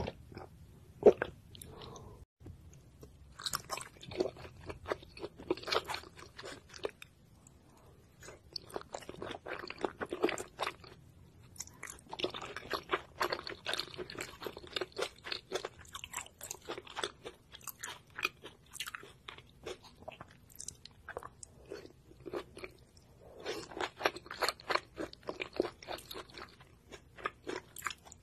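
Close-miked ASMR eating sounds: a person chewing and crunching food, in several runs of rapid crunching separated by quieter stretches of sparser chewing.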